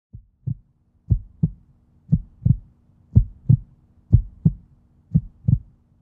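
Heartbeat sound effect: pairs of low thumps, lub-dub, about once a second, over a faint steady low hum.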